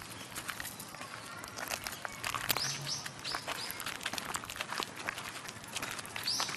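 Footsteps on a walk, a steady patter of short clicks. A bird gives a run of about four short, falling chirps in the middle.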